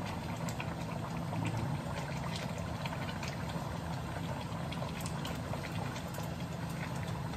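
Chicken afritada simmering in tomato sauce in a wok, with scattered small crackles and bubbling and the occasional click of a spatula stirring, over the steady low hum of a range hood fan.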